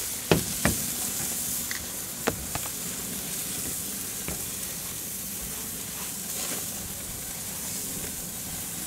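Meat and vegetables sizzling on the hot grates of a gas grill, a steady hiss, with a few sharp clicks in the first two and a half seconds.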